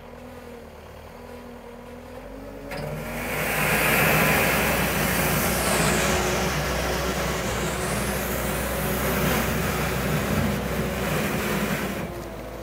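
Caterpillar 906H2 compact wheel loader's diesel engine running as the machine drives close by. From about three seconds in, a loud scraping hiss joins it as the lowered steel bucket pushes over the packed snow. The hiss eases off near the end.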